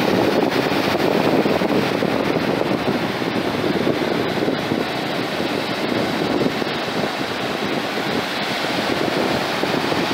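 Baltic Sea surf: small waves breaking and washing up a sandy beach in a steady rushing wash, with wind buffeting the microphone.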